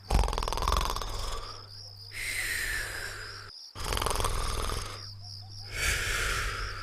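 Cartoon snoring sound effect, twice: each time a rasping, rattling snore on the in-breath, then a whistle that falls in pitch on the out-breath.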